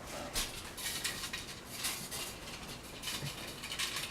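Faint, scattered light clicks and rustles of small objects being moved about and knocking together.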